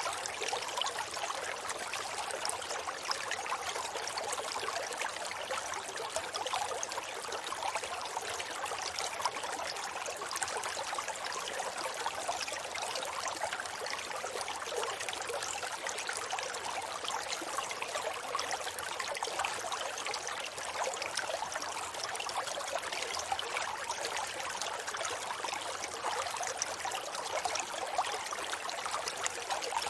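River water flowing steadily over its bed: a constant, mostly high rushing hiss, with fine splashing and trickling and no deep rumble.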